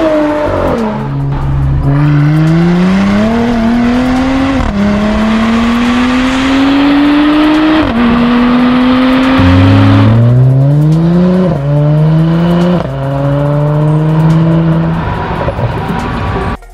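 Mercedes-AMG C43's twin-turbo V6 through an Armytrix valved cat-back exhaust. It starts with a falling note as the car passes, then accelerates hard through the gears: the pitch climbs and drops sharply at each of several upshifts, then cuts off near the end.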